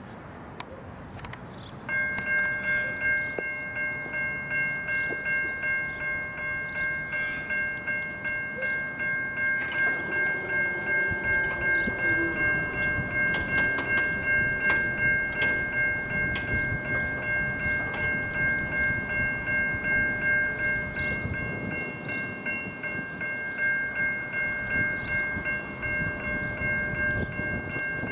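Siemens Type 3 electronic level-crossing bells start ringing about two seconds in: a repeated electronic ding, about two strikes a second, that marks the crossing activating and the boom gates lowering.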